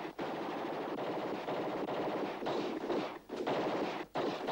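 Sustained automatic gunfire, machine-gun bursts fired in rapid succession, with short breaks about three and four seconds in.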